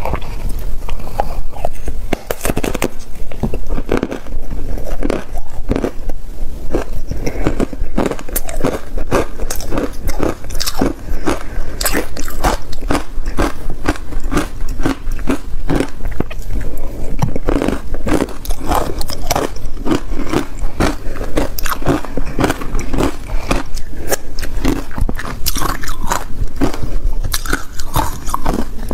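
Hard ice coated in matcha powder being bitten and chewed: a loud, continuous run of sharp crunches, several a second.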